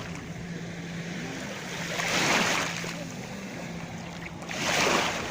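Small Azov Sea waves washing onto the shore, two swelling rushes about two seconds and nearly five seconds in, over a steady low hum.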